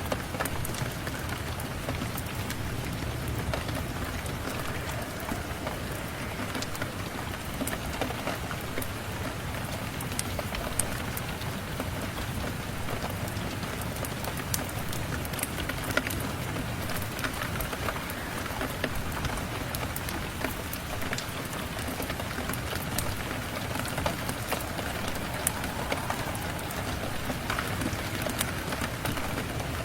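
Steady rain falling, with many small sharp ticks scattered throughout.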